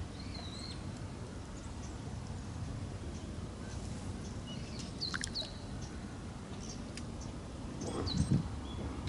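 Small birds chirping and calling in short scattered notes over a steady low rumble of outdoor background noise, with a brief low thump about eight seconds in.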